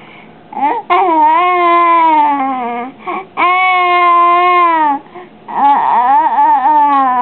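Baby vocalizing in three long, drawn-out vowel sounds, each one sliding down in pitch toward its end.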